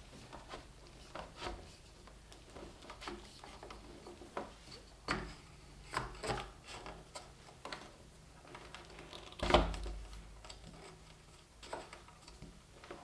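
Electrical cable being worked through a channel in a wooden workbench frame: irregular rubbing and scraping with light knocks, and one louder knock about nine and a half seconds in.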